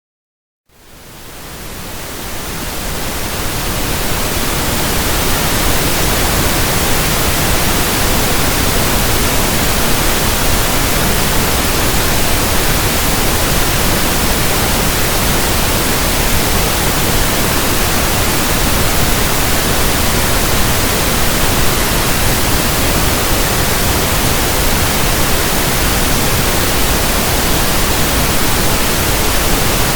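Pink noise: a steady, even hiss that fades in over the first few seconds after a moment of silence, then holds level.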